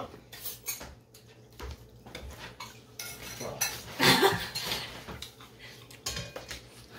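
Cutlery clinking against plates and bowls during a meal, in scattered light clicks, with a brief louder noise about four seconds in.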